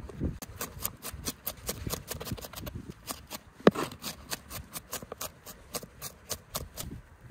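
Chef's knife chopping red onion on a wooden cutting board: a quick, even run of knocks, about five a second, with one much louder knock a little past halfway.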